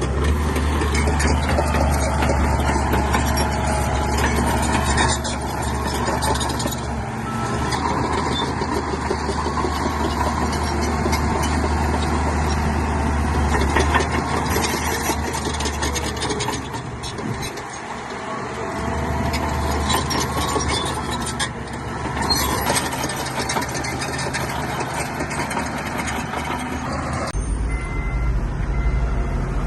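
Bulldozer's heavy diesel engine running steadily under load, easing off briefly about two-thirds of the way through; the sound changes abruptly near the end.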